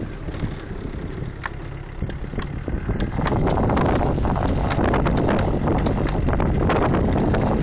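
Car driving through deep snow on a wheel fitted with snow chains: a churning noise of tyre, chain and packed snow with many sharp clicks. It grows louder and steadier about three seconds in.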